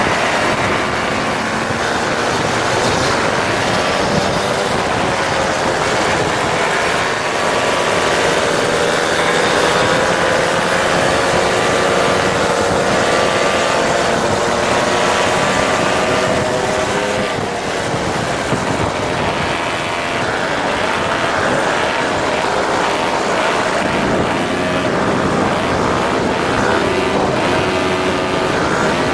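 Several moped engines buzzing together on a group ride, their pitch drifting up and down with the throttle over a steady rush of noise.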